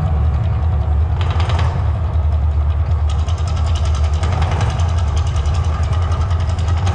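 Deep, steady rumble of the Mirage volcano show's eruption effect. A rapid crackling joins briefly about a second in and again from about three seconds in.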